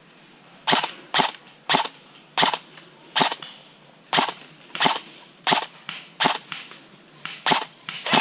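Airsoft gun firing single shots: about a dozen sharp cracks, one roughly every half to three-quarters of a second.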